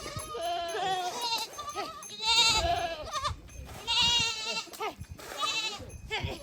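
Goats bleating: several loud, quavering bleats in turn, about two, four and five and a half seconds in, with lower calls before them.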